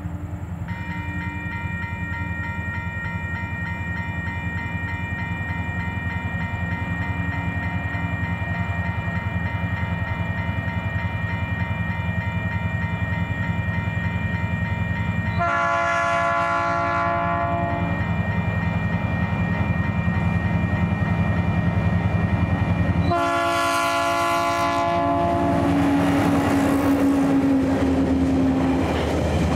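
TasRail diesel locomotive 2051 hauling a long train of hopper wagons, its engine running with a steady drone. It sounds its horn twice for the level crossings, each blast about two and a half seconds long, about halfway through and again some seven seconds later. Near the end the clatter of the wheels on the rails grows as the train comes close.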